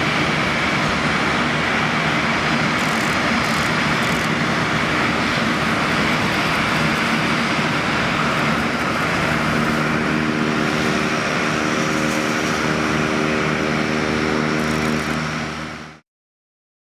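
Embraer 175's twin turbofan jet engines during the landing rollout: a steady loud roar, with a cluster of steady low engine tones coming in about ten seconds in. The sound fades out about fifteen seconds in.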